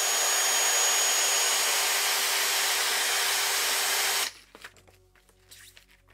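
Cordless drill spinning a plastic roller-skate wheel against hand-held fine wet-and-dry sandpaper: a steady sanding hiss over the drill motor's whine, smoothing the wheel's surface. It stops abruptly about four seconds in, leaving faint synth background music.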